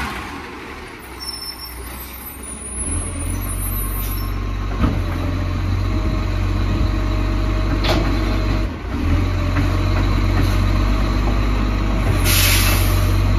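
Side-loader garbage truck's diesel engine running with a steady low drone while its automated arm grabs and lifts a wheelie bin. There are a couple of sharp knocks about 5 and 8 seconds in, and a short burst of hissing air near the end.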